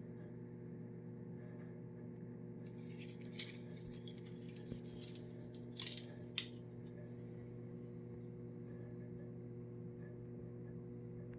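A few short clicks and rustles of a die-cast toy car and its plastic blister packaging being handled, over a steady low hum.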